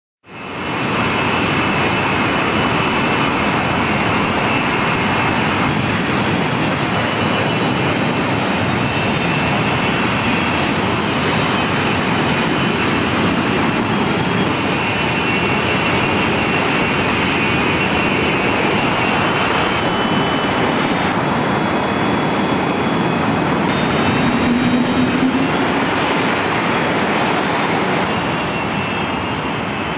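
Hawker Siddeley Dominie T1 jet's twin rear-mounted turbojet engines running as the aircraft taxis: steady, loud jet noise with a high whine over it. It starts suddenly about half a second in.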